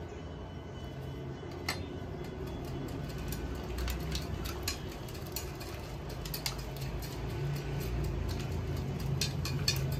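Scattered light clicks from handling a lemon plant's root ball, over a steady low background rumble that grows slightly louder after a few seconds.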